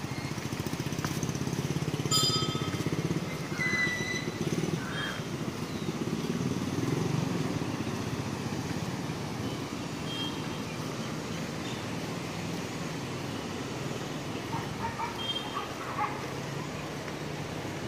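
A motorcycle engine running at low revs, louder in the first half and then fading to a low rumble. A few short high chirps come and go over it.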